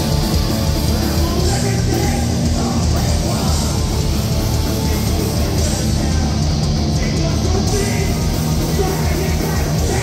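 Live hardcore band playing: a vocalist shouting into the microphone over distorted guitars, bass and drums, loud and dense throughout.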